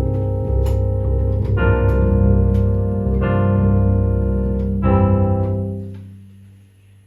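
Electronic keyboard playing held chords over a deep sustained bass, moving to a new chord about every second and a half, then the last chord dies away near the end.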